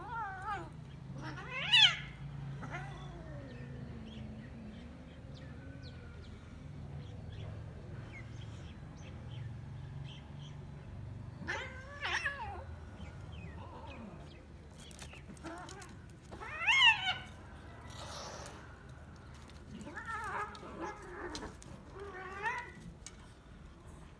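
Cats yowling and meowing while play-fighting: a handful of drawn-out calls that waver up and down in pitch, the loudest a couple of seconds in and about two-thirds of the way through, over a faint steady low hum.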